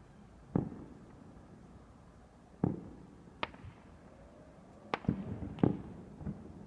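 Fireworks going off: about six sharp bangs at uneven intervals, each with a short echoing tail, with two in quick succession just before the middle.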